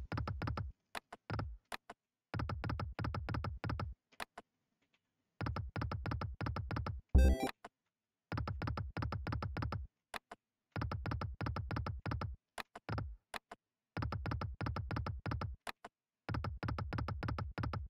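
Online slot game's electronic reel-spin sound effects: a short rhythmic burst of rapid synthesized ticks for each spin, repeating about every two and a half seconds, with a brief louder chime about seven seconds in as a small win pays out.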